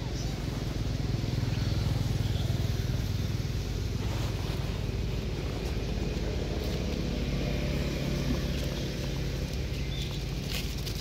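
Steady low hum of a running motor vehicle engine, loudest in the first few seconds, with a few faint clicks near the end.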